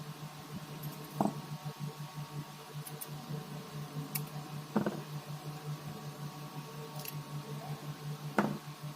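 Small parts and tools being handled while taking apart a smartphone: three soft knocks and a few faint clicks over a steady, pulsing electrical hum.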